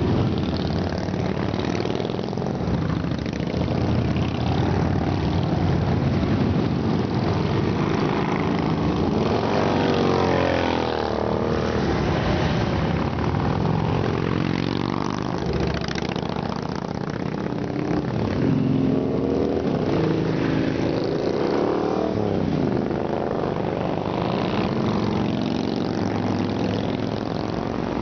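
A stream of large cruiser and touring motorcycles riding past one after another, their engines running and accelerating. The engine pitch rises and falls as each bike passes, most clearly about ten seconds in and again from about sixteen to twenty-two seconds.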